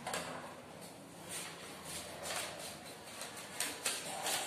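A sheet of paper rustling and crinkling as it is handled and crumpled, in several short, irregular bursts.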